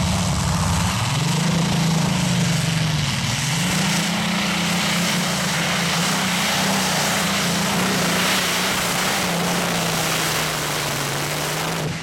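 Modified pulling tractor's engine running at full power under load as it drags the weight sled down the track. Its note dips and rises in the first few seconds, then holds steady.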